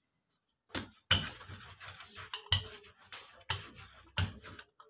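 Wooden rolling pin rolling out flour-dusted dough on a countertop: rubbing and scraping as it rolls, with several sharp knocks as the pin meets the counter, starting after a short silence.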